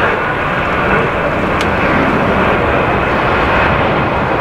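Rolls-Royce Trent XWB turbofans of an Airbus A350-941 running loudly and steadily as the airliner moves along the runway.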